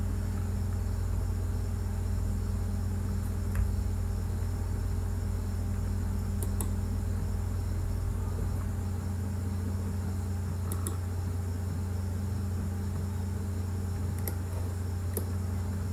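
Steady low electrical hum with a faint high whine above it, with a few faint clicks scattered through it.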